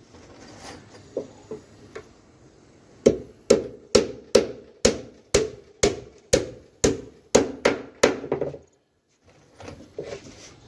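A hammer driving nails into plywood staircase shuttering. A few light taps come first, then about three seconds in a run of about a dozen sharp blows, roughly two a second, each with a short ring, which stops abruptly.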